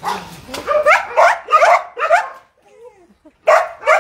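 Shelter dogs barking behind kennel fences: a quick run of short, sharp barks, a pause of about a second, then two more barks near the end.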